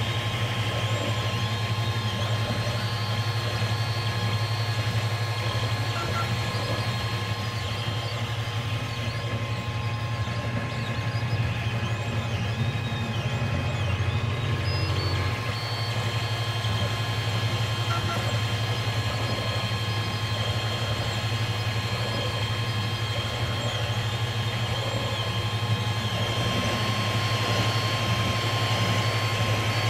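TEVO Tornado 3D printer running a print at 70 mm/s: its stepper motors whine in short, shifting pitches as the print head moves back and forth, over a steady low hum.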